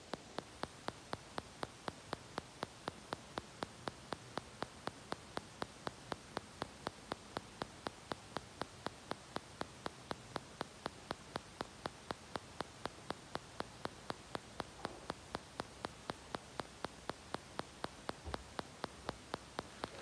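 Evenly spaced sharp clicks, about three a second, over a steady hiss.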